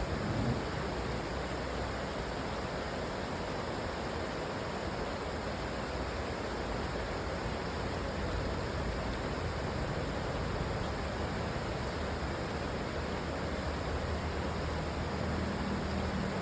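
Steady rushing water, an even unbroken hiss with no distinct splashes.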